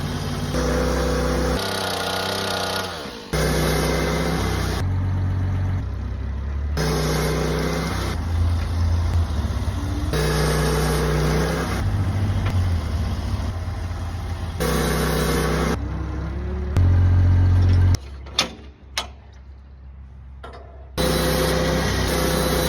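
Portable sawmill engine running under load as it saws a pine log, its pitch and level shifting abruptly every few seconds. A quieter stretch near the end holds a few sharp knocks before the running sound returns.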